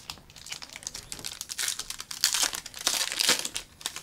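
Plastic wrapper of a trading-card pack crinkling and tearing as it is opened by hand, a dense crackle that is loudest in the second half.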